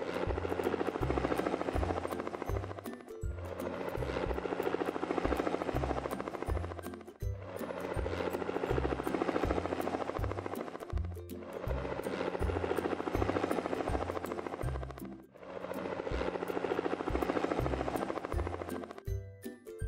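Cartoon helicopter rotor sound effect, a fast chopping that swells and dips about every four seconds, over background music with a rhythmic bass line. The rotor sound stops about a second before the end, leaving the music alone.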